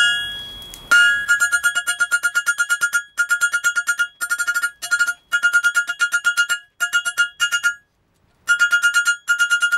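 Hammer blows on glowing 16 mm rebar against a steel anvil, sped up. The result is a fast run of ringing metallic strikes, about eight a second, always at the same pitch, with a short break about eight seconds in.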